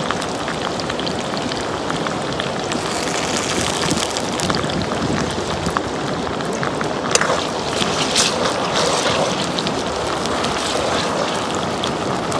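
Steady hiss and scattered crackling from a wood fire burning under an iron kadai of simmering broth, with one sharp click about seven seconds in.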